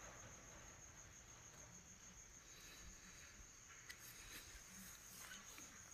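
Near silence, with a faint steady high-pitched insect trill, likely a cricket, in the background.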